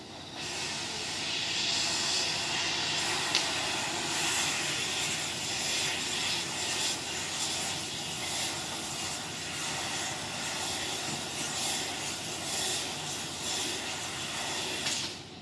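Railway track-maintenance machinery running at the trackside: a steady, hissing rush that starts suddenly and stops suddenly, with one sharp knock about three seconds in.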